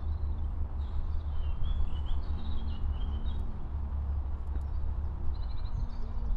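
Songbirds chirping and singing in short phrases over a steady low rumble. The birds are busiest in the first half and call again briefly near the end.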